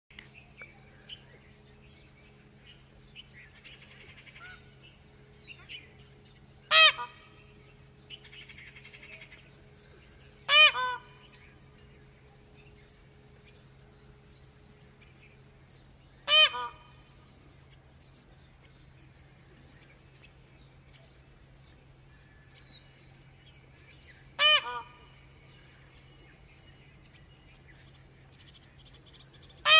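Indian peafowl giving its 'pepo pepo' alarm call five times, several seconds apart. Each call is a loud, sharp note followed quickly by a softer second note.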